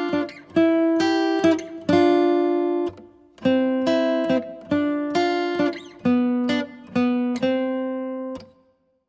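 Background music: a melody of plucked notes, each ringing and dying away, breaking off into silence near the end.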